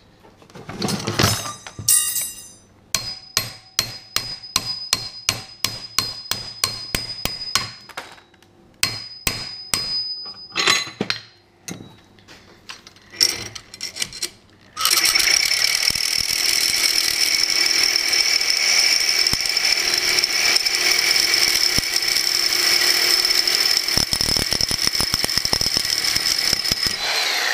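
A hammer tapping a steel knife blade clamped in a vise, sharp ringing metal strikes at about two a second. About fifteen seconds in, a reciprocating saw with a Diablo carbide-strip blade starts and cuts steadily through the stainless-steel knife with a harsh, high metallic ringing, stopping near the end.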